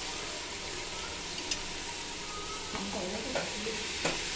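Chicken pieces frying in hot oil in a metal pot, a steady sizzle. In the second half a steel ladle gives a few light knocks against the pot as stirring begins.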